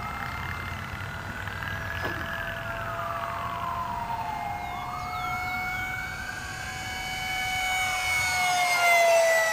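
Model F-16 ducted-fan jet whining in flight, a steady high tone that dips in pitch and is loudest near the end as it passes close. A second tone rises and falls slowly every few seconds, wailing like a siren.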